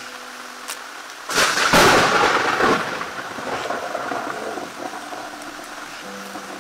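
King crab shell being cracked and broken apart by hand: a loud crackling crunch about a second in, lasting about a second and a half and then trailing off.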